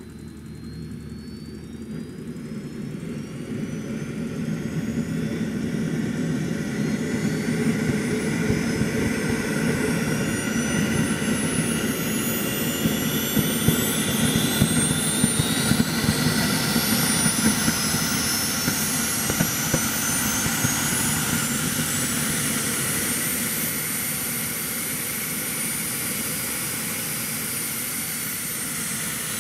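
JetCat P180 model jet turbine spooling up during its start sequence. A high whine rises steadily in pitch and loudness for about twenty seconds, with a broad rushing noise beneath it, then levels off and eases back slightly near the end as the engine settles.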